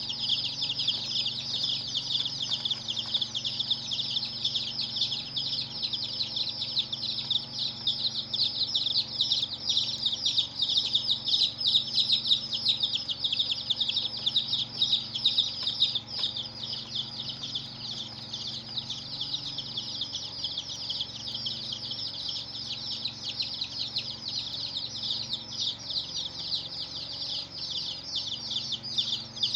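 Many baby chicks chirping at once: a dense, continuous chorus of short, high peeps.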